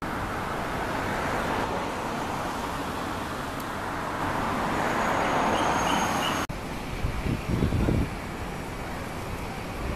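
A car drives past on the road with steady traffic noise behind it, its tyre and engine noise swelling to a peak about five or six seconds in. After a sudden cut, a few gusts of wind rumble on the microphone.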